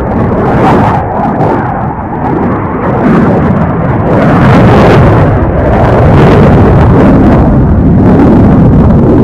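US Navy F/A-18 Hornet's twin jet engines making loud, ragged jet noise with crackle as it flies overhead. The noise grows louder about three seconds in and stays loud.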